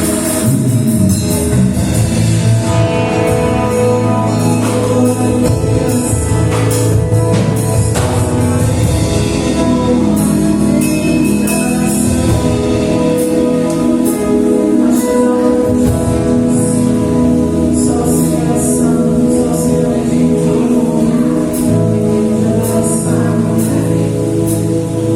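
Portuguese-language gospel worship song performed by a band with singing: sustained chords under frequent drum and cymbal hits.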